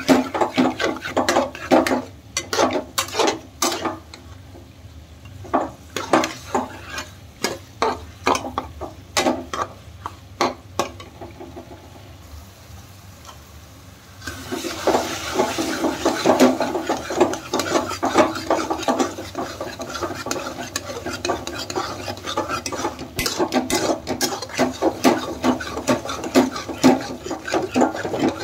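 Steel spatula scraping and clacking against a steel kadai as diced turnip is stirred while it fries in ghee. The strokes thin out a few seconds in and pause briefly near the middle. They then start again with a louder, steady frying sizzle under them.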